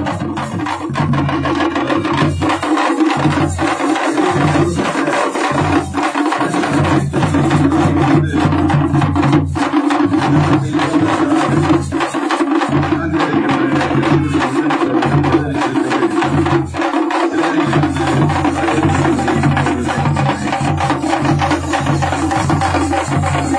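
Parai frame drums beaten with sticks by a troupe in a fast, dense, unbroken rhythm, with a large barrel drum adding deeper beats.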